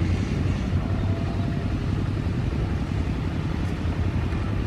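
Airbus A330 jet engines running at idle, a steady low rumble with a fluttering edge.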